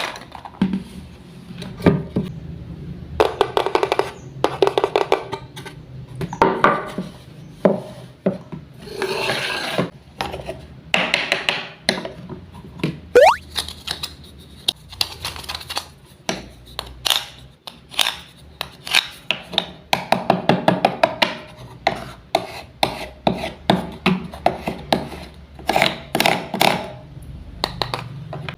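Wooden toy fruits and vegetables being cut apart with a toy knife: repeated short wooden taps and clacks, with scraping, rasping stretches as the pieces are pulled apart.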